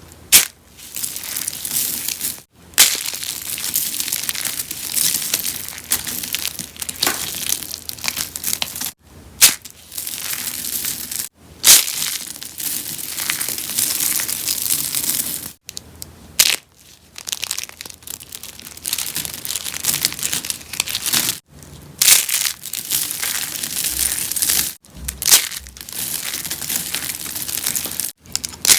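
Rose soap being crushed: a dense crackling crunch that comes in bursts a few seconds long with short pauses between, several of them starting with a sharp snap.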